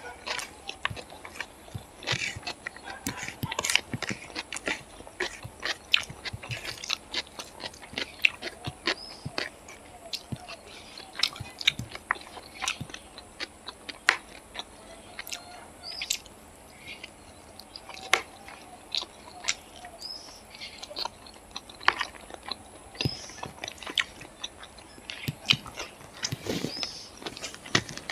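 Chewing of fried rice and chicken eaten by hand, close to the microphone: many quick, irregular mouth clicks and smacks.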